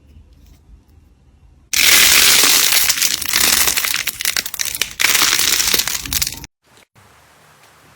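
Slime being handled and crushed, making a loud, dense crunching crackle that starts abruptly about two seconds in and cuts off suddenly near the end.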